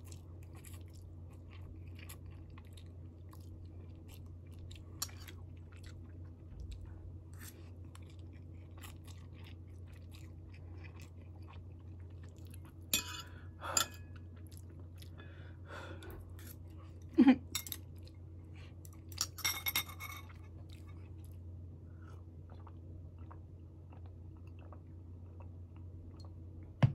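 Close chewing of a mouthful of instant ramen noodles, with faint wet clicks throughout over a steady low hum. About halfway through come a few sharper knocks, like chopsticks tapping against the dishes.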